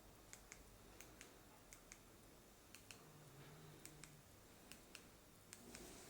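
Near silence broken by faint sharp clicks in pairs, each pair about a fifth of a second apart, repeating roughly once a second.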